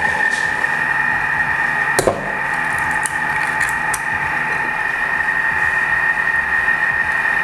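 Thermomix TM6 running steadily at speed 2 while heating to 70 °C: a constant tone over an even hiss. A sharp click about two seconds in, then a few lighter clicks.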